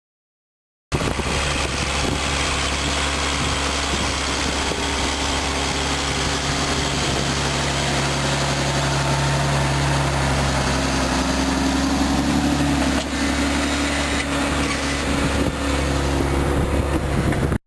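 An engine running steadily, starting about a second in after silence, with a low, even hum and a few steady pitches.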